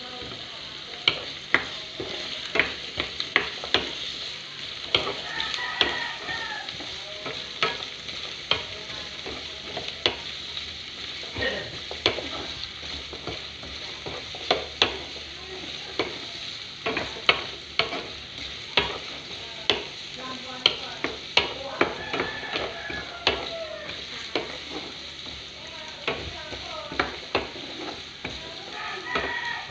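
Diced carrots, onions and garlic sizzling in oil in a frying pan while a wooden spoon stirs them, knocking and scraping against the pan in frequent sharp clacks.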